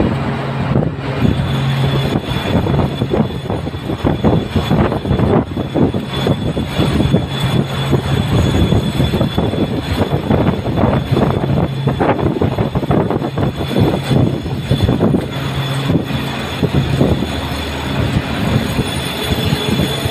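Tunnel construction machinery running, a loud steady mechanical drone with a constant low hum, heard inside the rail tunnel, with a dense irregular crackle over it.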